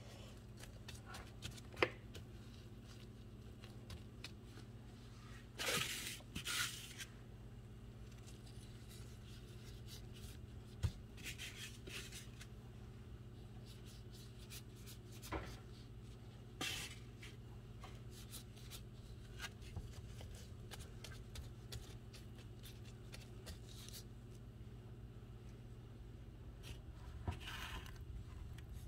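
Gloved hands mixing raw chicken feet with sliced ginger and garlic: scattered brief crinkles of the plastic glove and soft rustles of the wet meat, over a faint steady low hum.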